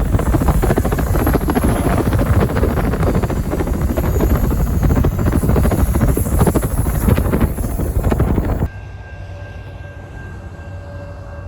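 Amtrak passenger train rushing past close by: a loud, dense rumble with rapid clatter. It cuts off suddenly about nine seconds in, leaving a quieter steady rumble with a faint held tone.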